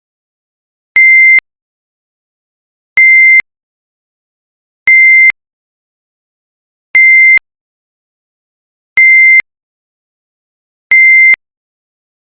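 Timer alarm signalling time's up: six short electronic beeps of one pure high tone, evenly spaced about two seconds apart.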